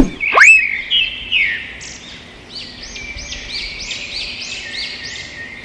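Intro sound effects: a sudden swoosh at the start, then bird chirps, ending in a run of short chirps repeated about three times a second.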